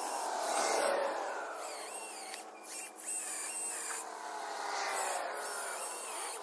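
Small engine-powered tool running at a distance, its pitch sliding down and back up as the throttle changes.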